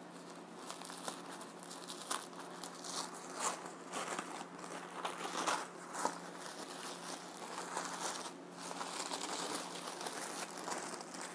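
Plastic poly mailer bag crinkling and tearing as it is pulled open by hand: irregular crackles and rustles, with a few louder ones near the middle.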